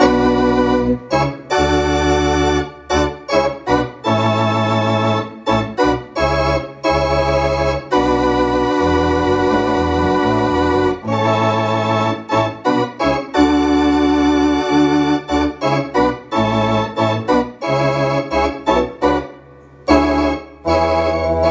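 Allen Digital Theater Compact electronic theatre organ being played: chords on both manuals with a wavering vibrato and low bass notes underneath, short detached chords alternating with longer held ones, and a brief break near the end.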